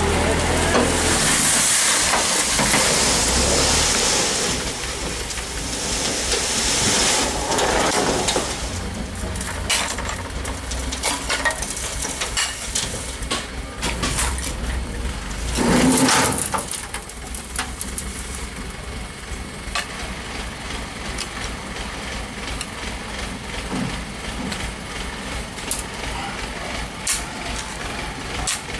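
Dump truck unloading soil: the engine runs while earth slides and pours from the raised bed. A loud rush of falling soil fills the first several seconds, a brief louder burst comes about halfway through, and then a steadier, quieter noise follows with scattered small knocks.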